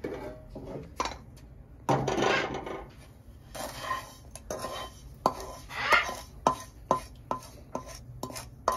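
A metal spoon scraping and knocking against a metal pan as roasted semolina is scooped out of it: a scrape about two seconds in, then a run of irregular sharp clinks that ring briefly.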